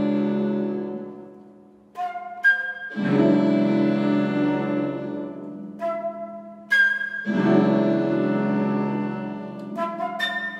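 Live mixed chamber ensemble of strings and winds with harp and celesta playing contemporary concert music: sustained chords that swell and slowly fade, twice interrupted by brief clusters of short high notes.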